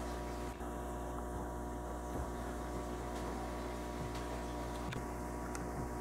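Steady electrical hum made of a stack of even, unchanging tones, with a few faint clicks.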